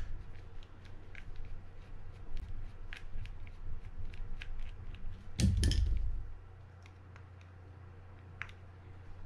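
Light clicks and taps of small metal fishing-reel parts and a mini screwdriver being handled during reassembly, with a louder bump about five and a half seconds in.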